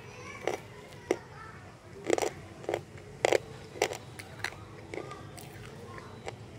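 Crane slate pencils being bitten and chewed: a run of sharp, dry crunches at about two a second, irregular, loudest in the first four seconds.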